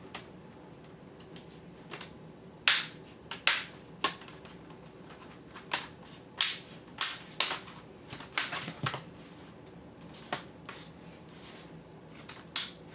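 Plastic laptop screen bezel being pressed back on, its clips snapping into place in a dozen or so sharp, irregular clicks, bunched in the middle, the loudest about three seconds in.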